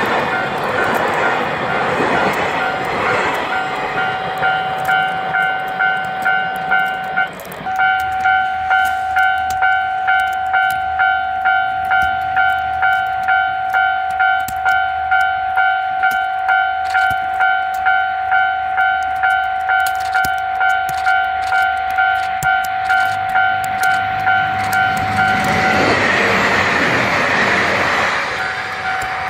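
A railway level-crossing warning bell rings in a steady electronic ding-ding, about two strikes a second, with a short break about seven seconds in. A freight train's wagons rumble past at the start, and a loud rushing noise swells near the end and drowns the bell.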